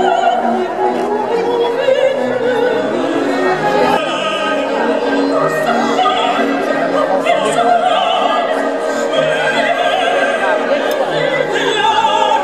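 Orchestral music with an operatic singer, with vibrato on the held notes, played over large outdoor loudspeakers.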